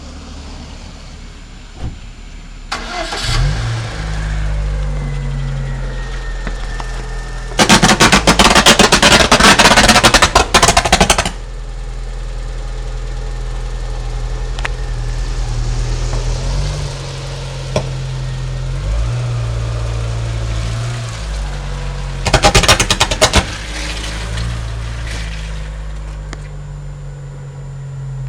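Burning overhead power wires shorting: a steady low electrical buzz that shifts pitch in steps, broken by two loud crackling arc bursts, a long one about eight seconds in and a shorter one about twenty-two seconds in. The line is still live because the transformer is not tripping.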